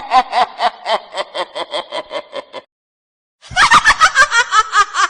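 Witch-cackle sound effect: a woman's fast, high 'ha-ha-ha' cackle at about five syllables a second, tailing off and stopping. After a short pause, a second witch cackle starts about three and a half seconds in.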